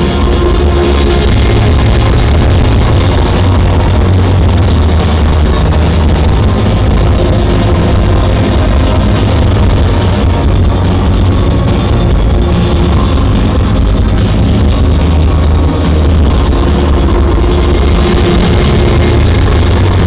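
Live rock band playing through a loud concert PA, recorded close up so that it is heavily overloaded: a steady, droning wall of sound over a deep bass pulse, with no clear highs.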